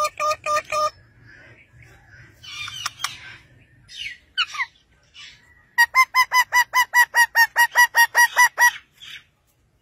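Parakeets calling: a quick run of short, evenly repeated calls at the start, then softer calls and a few rising and falling squawks, then a second fast run of about seventeen even, high calls, some six a second, in the second half.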